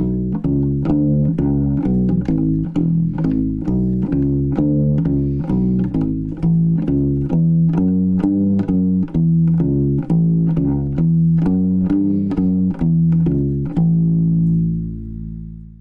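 Harley Benton Kahuna CLU-BASS ukulele bass played acoustically, unplugged: a steady line of plucked bass notes, about three a second, ending on a last note that rings on and fades out.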